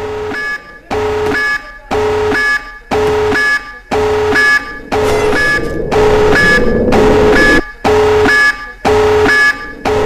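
An alarm-like signal sounding in regular pulses about once a second, each roughly half a second long, several steady pitches at once.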